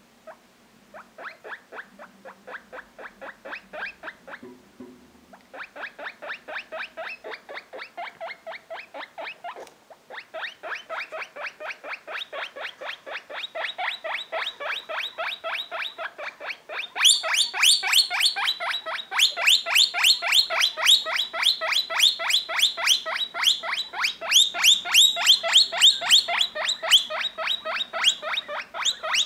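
Baby guinea pig wheeking: a long run of short, rising squeals, several a second, the begging call for food. The calls pause briefly twice, then grow louder and more piercing about two-thirds of the way through.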